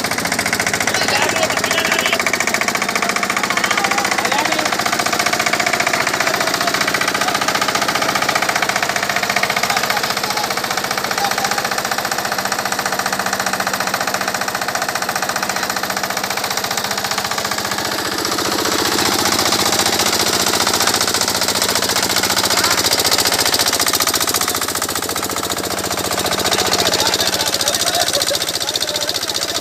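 Stationary engine running steadily with a rapid, even thudding, driving a gear-and-roller sugarcane crusher as cane is fed through it.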